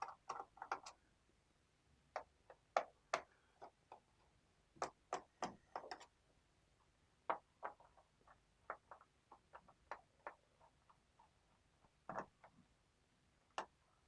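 Irregular small clicks and ticks of a screwdriver turning out the bottom-cover screws of a plastic-cased laptop, with light taps of the tool against the case.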